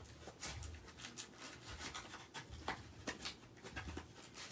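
Faint rustling and scattered light clicks of plastic bags and small plastic toy parts being handled and packed away.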